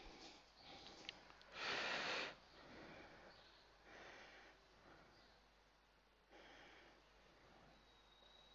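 A person breathing out hard through the nose once, about two seconds in, with fainter breaths later in a quiet room. There is a small sharp click about a second in.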